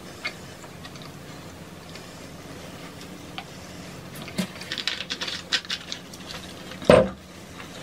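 Close-miked chewing and mouth sounds of people eating tacos and burritos. It is quiet at first, then a run of small crackling clicks about halfway, and one short, louder knock near the end.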